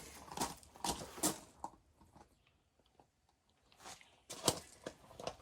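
Irregular sharp clicks and crinkly rustling of things being handled. They stop for about two seconds midway, then a few more knocks follow.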